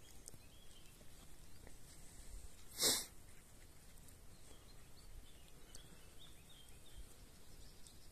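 A single short, sharp sneeze close to the microphone about three seconds in, over a quiet rural background with faint bird chirps.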